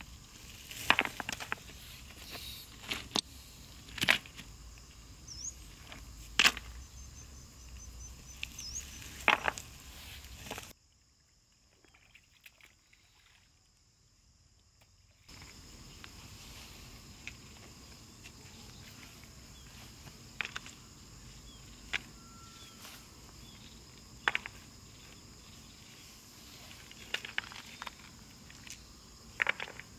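Insects calling steadily in a high, even band, with irregular sharp knocks and clicks every second or few seconds. The sound drops out to near silence for about four seconds midway, then the insects and knocks resume.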